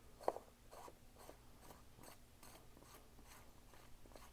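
Hot tub diverter valve's buttress cap being screwed back on by hand, its threads giving faint, regular ticks and scrapes about two to three times a second, with one sharper click about a third of a second in.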